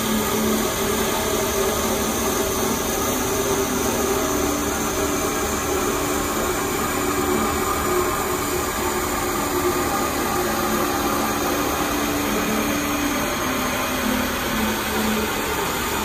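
Steelmaster SM-H620HA automatic mitre bandsaw running steadily, its blade cutting slowly down through a timber section, a steady even hum throughout.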